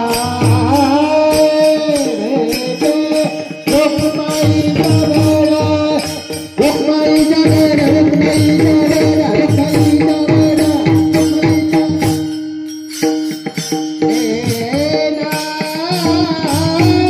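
A Marathi devotional abhang sung over a steady drone, with tabla-like drumming and small jingling percussion keeping the rhythm.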